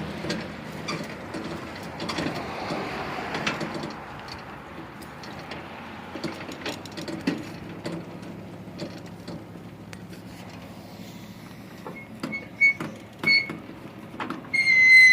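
Go-kart being rolled by hand, with its wheels and frame rattling and clicking, busiest in the first few seconds. Near the end come a few short high squeaks, the last and loudest just before the end.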